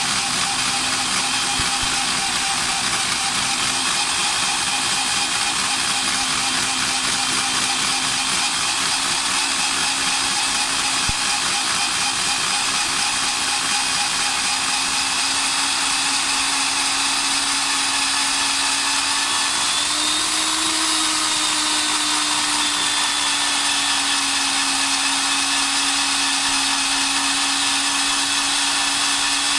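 Kong Sung KSCD-PW14 concrete core drill's motor running steadily, its pitch rising briefly about two-thirds of the way through and then settling back.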